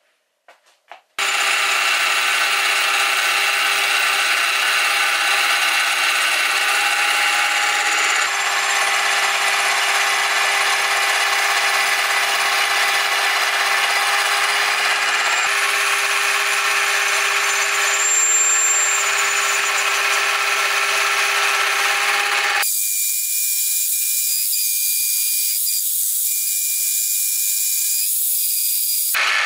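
Milling machine spindle driving a small slitting-saw disc cutter through a finned aluminium radiator: a loud, steady machining whine with several tones, starting about a second in. The sound changes abruptly a few times, and for the last several seconds it turns thinner and higher.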